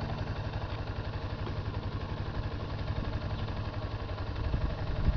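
Yamaha XT250 Serow's air-cooled single-cylinder four-stroke engine idling with an even, fast beat, and a couple of brief louder knocks near the end.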